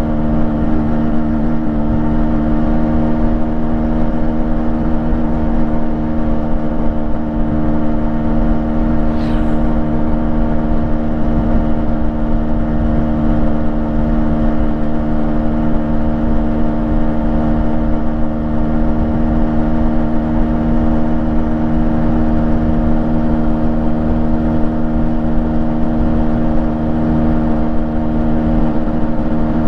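Yamaha RX135's 132cc single-cylinder two-stroke engine, freshly rebuilt, idling steadily at a constant speed through its stock exhaust.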